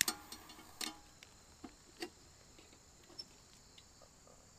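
A handful of sharp clicks and knocks, the loudest right at the start and the rest spread over the next three seconds, over a steady high drone of insects.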